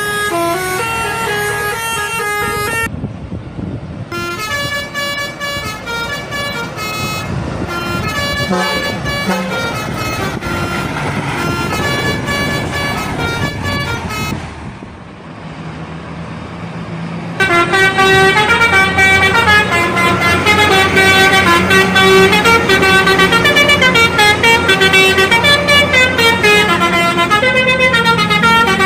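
Indonesian bus telolet horns, multi-trumpet musical air horns, playing quick stepping multi-note tunes, several short melodies one after another. The horn tunes get clearly louder about two-thirds of the way through.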